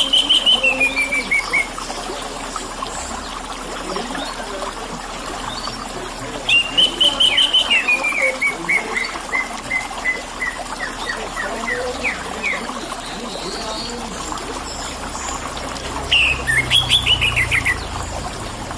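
A bird sings three phrases of clear whistled notes, each a quick series stepping down in pitch. The middle phrase, starting about six seconds in, is the longest and slows into separate notes. Under it runs a steady trickle of water.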